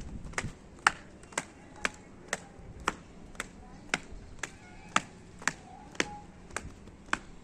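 Steady, regular ticking: sharp clicks about two a second, evenly spaced.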